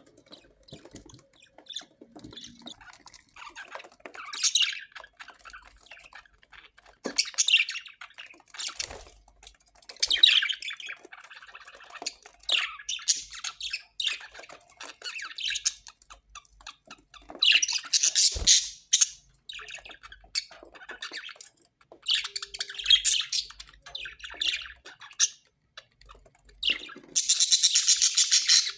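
Parrots squawking in a string of short, harsh calls. The loudest comes about two-thirds of the way in, and near the end a fast, pulsing squawk runs on.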